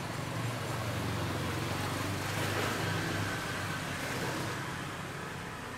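Road traffic: a steady low engine rumble, swelling as a vehicle passes a little before halfway.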